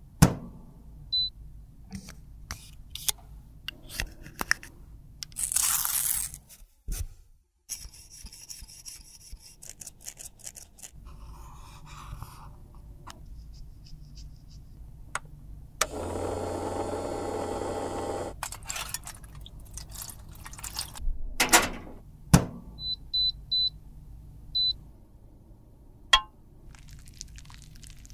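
Close-up handling sounds of lipstick repair: clicks and scrapes of a metal tool digging lipstick out of its tube and glass beakers being moved. Short electronic appliance beeps, one about a second in and a quick run of four later, and a steady machine hum for about two seconds midway.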